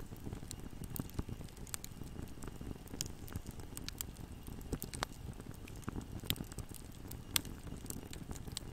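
Wood fire burning: logs crackling and popping irregularly over a steady low noise of the flames, with the sharpest pops about six and seven seconds in.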